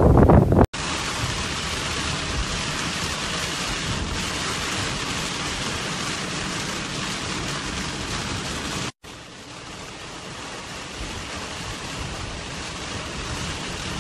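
A split second of strong wind on the microphone breaks off abruptly. It gives way to a steady hiss of heavy rain on a moving car and the wet road under it. The hiss drops out for a moment about nine seconds in, returns a little quieter and slowly builds.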